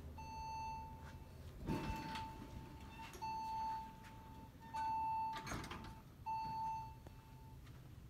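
An elevator's electronic beeper sounds a steady mid-pitched tone in about five beeps of roughly a second each, with short gaps between them. A couple of light knocks come through, one about two seconds in and one past the middle.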